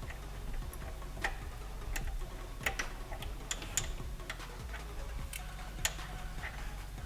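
Scattered sharp metallic clicks and clinks, irregularly spaced, from hand tools as a 3/8 ratchet and adapter are fitted onto a serpentine belt tensioner. A steady low hum runs underneath.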